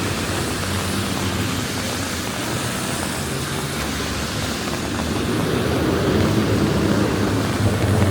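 Street traffic on wet roads: a steady hiss with a vehicle's low engine rumble that grows louder from about five seconds in as it comes closer.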